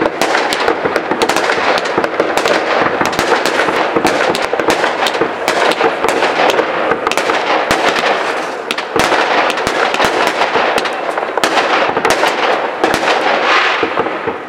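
Aerial fireworks bursting overhead: a dense, continuous crackle of many small pops with sharper bangs among them. The crackle eases briefly about eight and a half seconds in, then picks up again.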